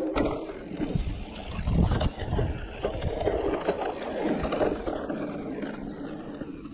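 An electric enduro mountain bike ridden over a dirt singletrack: knobby tyres rolling on the trail with the frame, chain and suspension rattling and knocking over bumps.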